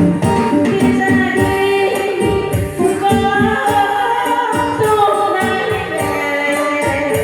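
A woman singing a Vietnamese song over instrumental accompaniment with a steady percussive beat.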